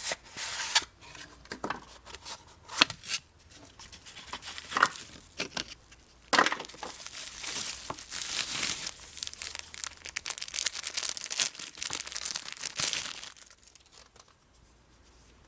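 Packaging being unwrapped by hand: irregular crinkling, rustling and tearing of wrapping, with a few sharp clicks and knocks, stopping near the end.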